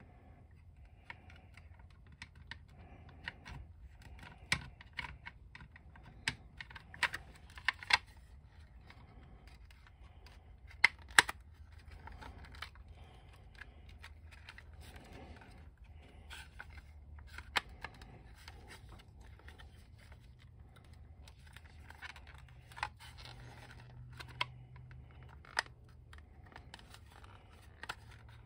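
Hard plastic toy-boat parts clicking and tapping as they are handled and fitted together, in scattered sharp clicks with a loud double click about eleven seconds in.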